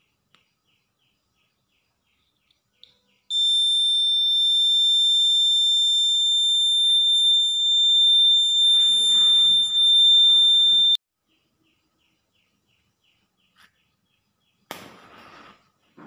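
Piezo buzzer of a homemade fire alarm sounding one steady, high-pitched alarm tone for about seven and a half seconds, then cutting off suddenly. It sounds when the burnt thread lets the circuit's contacts close on the 9-volt battery. A short scraping noise comes near the end.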